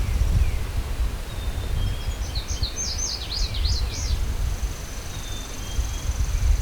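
Wind buffeting the microphone, with a small songbird singing a quick, jumbled phrase of high chirps about two seconds in, followed by a thin, high, even trill near the end. Scattered single bird chirps sound in the background.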